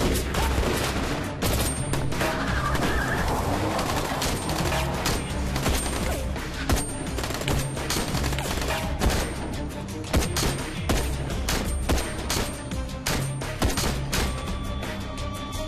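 Gunfire: many shots in quick succession, with a few louder single reports scattered through, over a tense dramatic music score.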